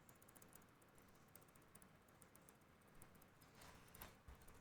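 Near silence: room tone, with a few faint small clicks near the end.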